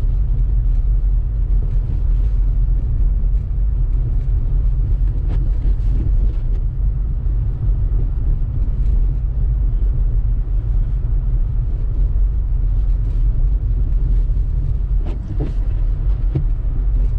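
Steady low rumble inside the cabin of a 2018 Honda Civic Turbo Sport hatchback driving on a snow-covered road: engine and tyres on packed snow, with a few light knocks now and then.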